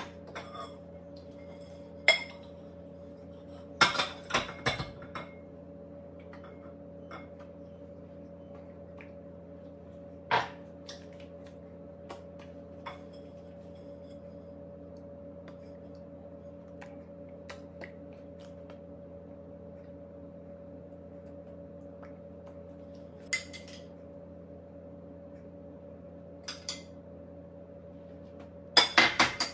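Kitchenware being handled: scattered clinks and knocks of a ceramic plate and utensils, with a quick run of a utensil tapping a glass bowl near the end as glaze is stirred. A steady low hum runs underneath.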